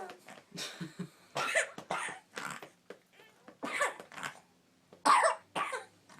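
Young child coughing in a run of short coughs in clusters, the loudest about five seconds in, a chesty cough that is bringing up phlegm and snot.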